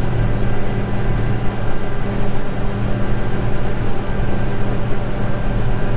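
John Deere 9986 cotton picker running steadily under load: a constant low diesel engine hum with a broad mechanical rush over it.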